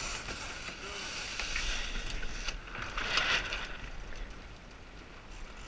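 Water rushing and splashing along the hull of a Lightning sailboat under way, with wind on the microphone. The rush swells to a louder surge of spray about three seconds in.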